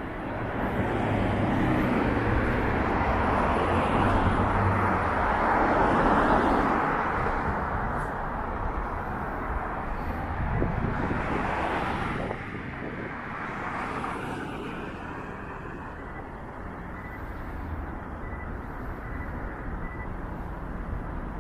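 City street traffic: vehicles passing close by, the loudest swelling up and fading over the first seven seconds or so, and another passing about eleven seconds in.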